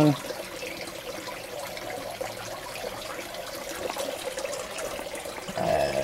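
Steady trickle of water running into a fish tank.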